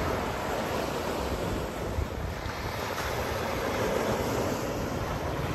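Sea surf washing onto a rocky shore in slow swells, with wind rumbling on the microphone.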